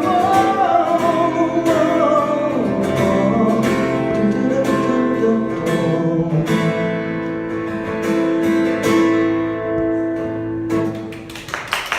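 Acoustic guitar strumming the closing chords of the song, with a wordless sung note over the first few seconds; the playing thins out and dies away near the end.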